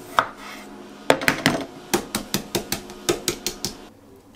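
Kitchen knife chopping cherry tomatoes on a wooden cutting board, the blade knocking on the wood. One knock, then from about a second in a quick run of knocks, about five a second, that stops near the end.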